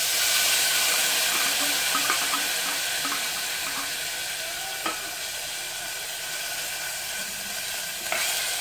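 Oily canned tuna sizzling in a hot stainless steel pot: a steady hiss that slowly eases off, with a few light knocks from a wooden spatula scraping the tin and the pot.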